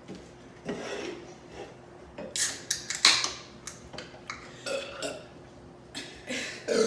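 A few short burps from people drinking soda, mixed with sharp clicks and clinks of drink containers, the loudest of these about two to four seconds in.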